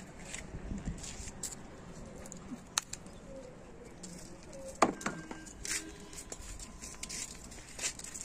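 Scattered clicks and rustling from handling among garden vines, with one sharp knock about five seconds in, over faint bird calls.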